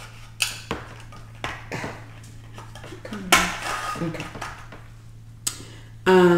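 Plastic straw pushed down through the plastic lid of a fountain-drink cup, with several short clicks and knocks of plastic as the cup and lid are handled.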